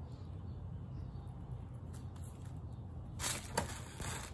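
Low steady background hum, then about three seconds in a brief rustle of a woven grass tunnel and tissue paper being handled, with a sharp tick as the tunnel is set down.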